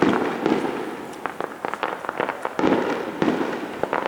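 Fireworks going off: a burst at the start and another about two and a half seconds in, each trailing into a rapid crackle of small pops.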